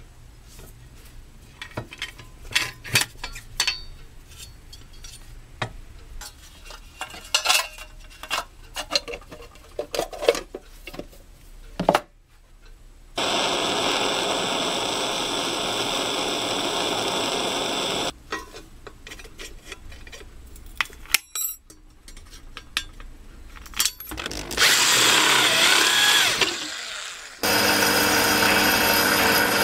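Clicks and knocks of brass sheet being worked in a small hand-operated sheet-metal brake. Then a gas soldering torch hisses steadily for about five seconds. Near the end a metal lathe starts running steadily, turning a brass part.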